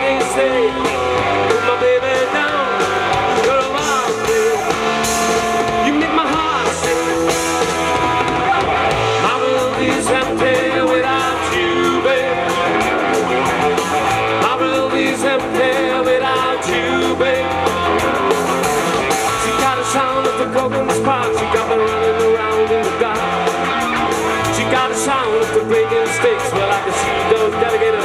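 Live rock band playing: electric guitar, bass guitar, drums and keyboard, in an instrumental stretch between sung lines.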